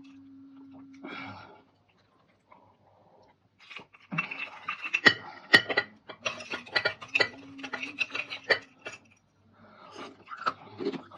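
Close-miked crunching and chewing of crisp dried fruit: dense crackling crunches from about four seconds in to about nine seconds, and a few more near the end, over a faint steady hum.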